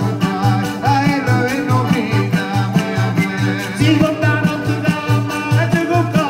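Live southern Italian folk music: accordion and acoustic guitar over a steady, driving bass pulse, with a frame drum and a voice singing the melody.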